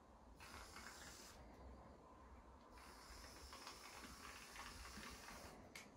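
Shaving foam hissing faintly out of an aerosol can in two squirts: a short one about half a second in and a longer one from about three seconds in.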